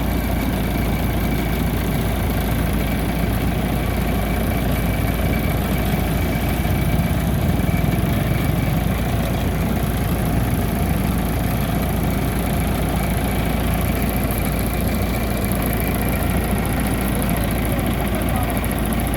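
Rice combine harvester's engine and machinery running steadily.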